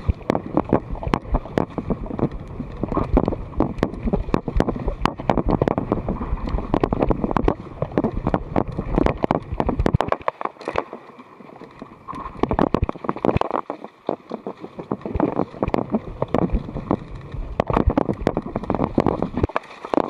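Mountain bike rolling fast down a dirt singletrack strewn with dry leaves: the tyres on leaves and dirt, with dense rattling and clattering from the bike over bumps and roots. It eases to a quieter stretch about halfway through before the rattling picks up again.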